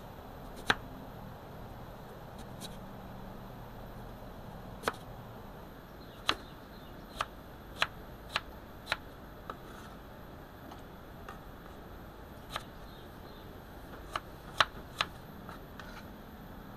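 Crinkle-cut knife slicing peeled potatoes, the blade knocking sharply on a wooden cutting board with each cut: about a dozen strokes at an uneven pace, quickest in the middle.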